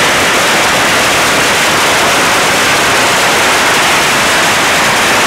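A 100,000-shot string of Chinese firecrackers going off in one continuous, very loud crackle, the bangs so rapid that they merge into a steady wall of noise.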